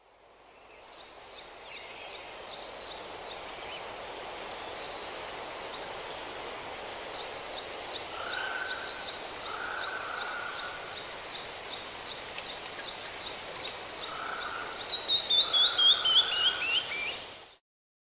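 Several garden songbirds singing over a steady background hiss: rapid repeated high chirps and a brief fast trill, with the loudest song near the end a run of notes falling in pitch. The sound fades in at the start and cuts off abruptly just before the end.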